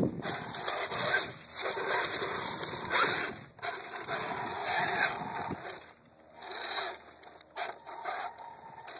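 RC rock crawler's electric motor and gearbox whirring in throttle bursts, with the tyres scrabbling over rock and dry leaves. Loud for the first six seconds, then shorter, quieter bursts.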